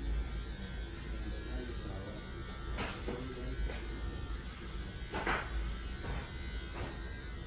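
Electric hair clippers buzzing steadily during a haircut, with a few short sharp noises partway through.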